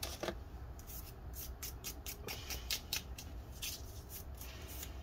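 Dust being cleaned off a removed laptop battery by hand: a quick, irregular series of short rubbing strokes, several a second.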